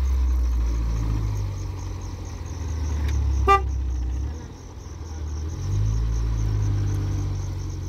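Peugeot 405 car engine running at low speed as the car manoeuvres and pulls forward, with one short horn toot about three and a half seconds in.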